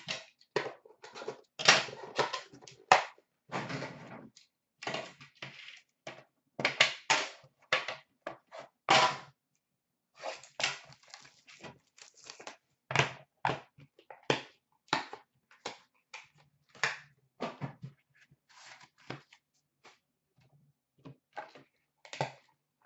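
Hands opening a metal hockey card tin and handling the foil card packs and cards inside: irregular clicks, knocks and crinkling rustles, with short silent gaps between them.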